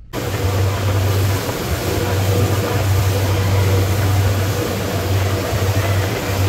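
Motorboat running at speed: a steady low engine hum under a constant rush of wind and water noise.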